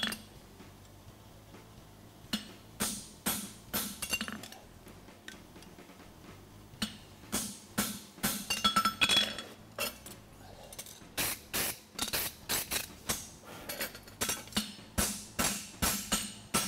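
Hand hammer striking hot steel on an anvil: sharp ringing metallic blows in irregular groups as a fullering tool is driven along the branch of a red-hot horseshoe to crease the nail groove. In the last few seconds the blows settle into a steady run of about two a second.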